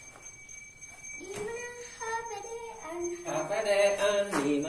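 A voice singing a wavering melody, faint from about a second in and clearly louder over the last second and a half.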